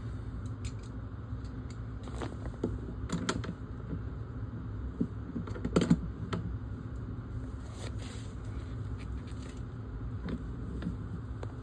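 Scattered light clicks, taps and creaks of hand tools and fittings being worked on an overhead copper pipe where it is adapted to CPVC, with a louder cluster of knocks about six seconds in. A steady low hum runs underneath.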